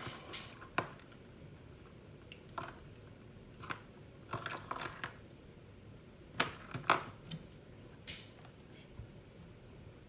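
Scattered light clicks and knocks of small objects being handled and set down on a work surface, with a cluster of sharper knocks a little past halfway.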